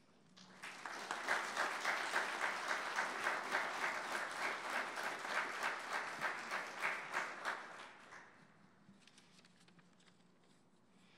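Audience applauding, building quickly and dying away about eight seconds in.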